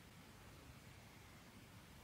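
Near silence: faint steady room tone with low hiss.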